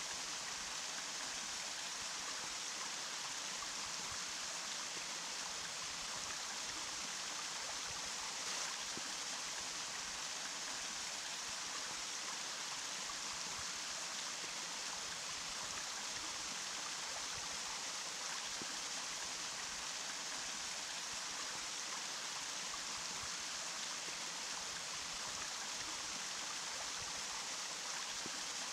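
Running water, such as a stream or small waterfall, making a steady, even rush with no pauses or changes.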